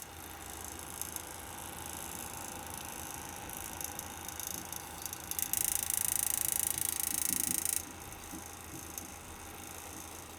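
Pump of a Cooler Master Seidon 120V all-in-one liquid CPU cooler running with an abnormal noise: a steady low hum under a gritty, clicking hiss, which grows louder from about five and a half to eight seconds in. The owner suspects air caught in the pump, since the noise stays whether the radiator sits above or below it.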